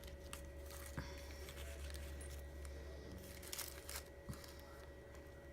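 Faint handling of paper and craft pieces on a desk: light rustles and a few small clicks, over a steady low electrical hum.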